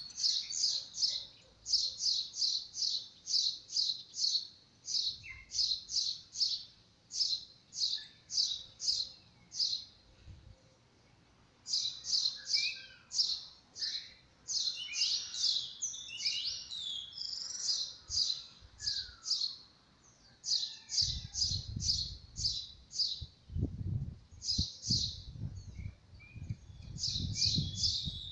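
Small bird chirping in fast runs of short, high notes, about four a second, breaking off for a second or so a little over a third of the way in, with other chirps and calls mixed in. A low rumble joins in the last quarter.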